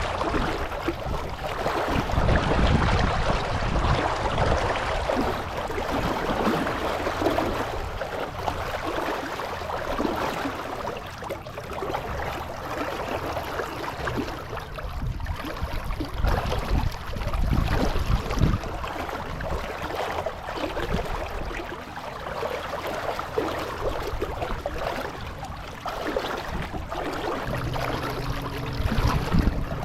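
Water splashing and gurgling along the hull of a small sailboat under sail, with no motor running. Irregular low rumbles of wind on the microphone come and go.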